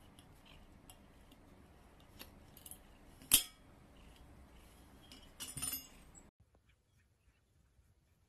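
Small metal clicks and clinks from an M18 smoke grenade's fuse and pull ring as a cat bites and paws at it. There is one sharp, loud click about three seconds in and a short rattle of clinks past five seconds, then near silence.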